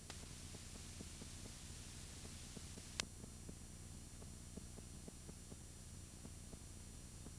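Steady low hum and faint hiss of a blank stretch of VHS videotape between recordings, with faint scattered ticking and a single sharp click about three seconds in.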